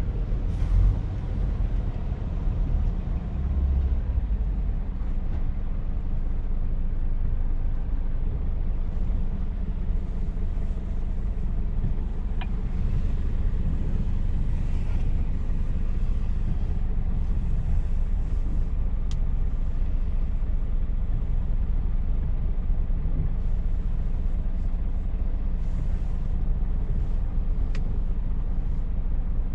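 Scania truck's engine and road noise heard from inside the cab while driving: a steady low rumble, with three brief, faint high-pitched sounds scattered through it.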